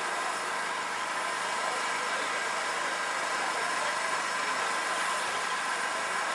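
Steady, even background noise: a constant hiss with a faint steady hum and no distinct events.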